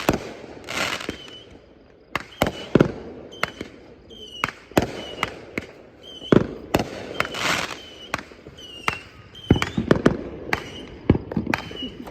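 Fireworks going off: an uneven series of sharp bangs and pops, with a hissing whoosh about a second in and again past the middle.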